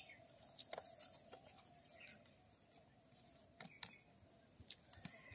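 Near silence: faint outdoor ambience with a few soft, scattered clicks.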